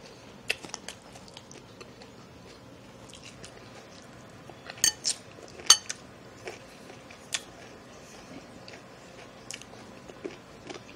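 Someone eating salad with a metal fork close to the microphone: quiet chewing punctuated by scattered sharp crunches and clicks. The loudest of these cluster about five to six seconds in.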